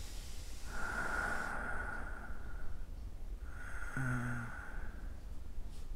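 A person breathing heavily: two long, noisy breaths, one about a second in and one about three and a half seconds in, the second with a short voiced catch in it.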